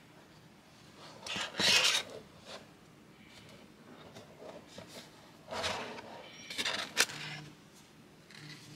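Paper and cardboard rubbing and sliding as a stack of paper cards is pulled out of a snug cardboard box: short rustling scrapes, the loudest about two seconds in, two more past the middle, and a sharp tap at about seven seconds.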